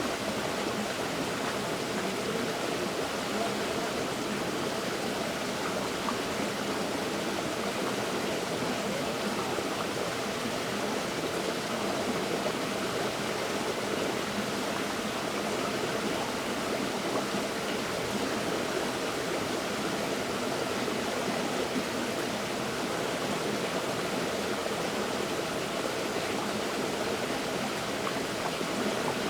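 River water flowing over rocks, a steady rushing and babbling.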